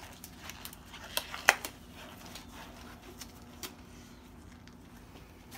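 Latex gloves being pulled on and handled: a few sharp snaps in the first two seconds, the loudest about a second and a half in, then only light, scattered handling ticks.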